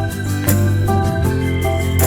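Background music: a gentle instrumental with held notes over a steady bass line.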